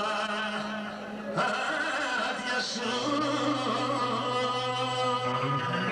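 A man singing a Sarakatsani folk song through a microphone and PA, over a steady held low note from the band that drops to a lower note about halfway through.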